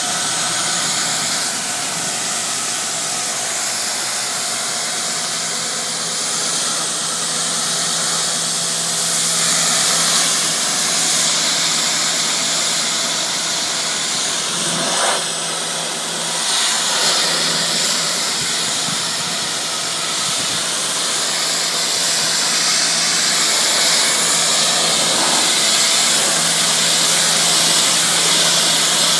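Pressure washer running: a steady motor hum under the loud hiss of the high-pressure water spray, with a short break in the spray about halfway through.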